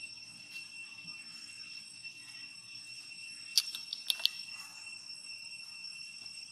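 A steady, high-pitched drone of insects in the forest. About three and a half to four seconds in, a few sharp clicks stand out as the loudest sounds.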